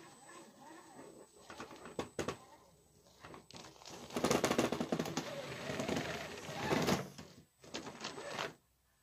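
Element RC Trailrunner 1/10 scale crawler driving over a concrete block and loose rubble: a few sharp clicks and knocks, then about three seconds of dense rapid rattling and crunching as its tyres and drivetrain work over the rocks, followed by a few shorter bursts.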